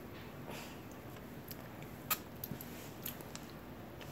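A few faint, short clicks over low room noise, one sharper than the rest about two seconds in.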